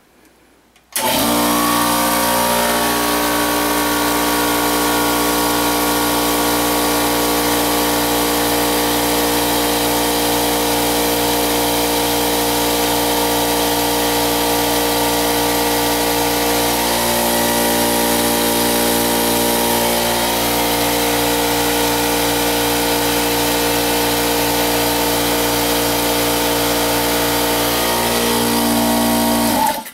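Sears Craftsman 3.5 hp, 15-gallon oil-less air compressor switched on about a second in and running steadily at full load, a very loud, harsh machine noise of about 84 dBA, then cut off sharply at the very end.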